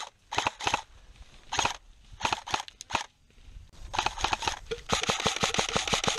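Footsteps swishing through long grass in short bursts. From about five seconds in comes a rapid run of sharp clicks, about ten a second: an airsoft rifle firing on full auto.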